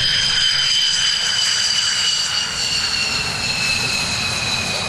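F-15DJ fighter's twin F100 turbofan engines whining as the jet taxis past close by. The high whine falls slowly in pitch over a low rumble.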